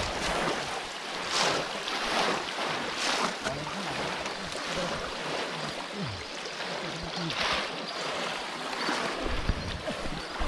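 Muddy pond water splashing and sloshing as several people wade through it and plunge bamboo polo fish traps into the shallows, with louder surges of splashing every few seconds.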